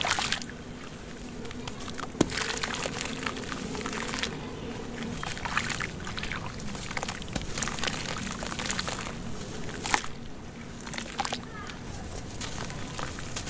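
Hands swishing and squelching through thick clay-muddy water in a plastic tub, with irregular wet splashes and slaps and a sharper splash about two seconds in.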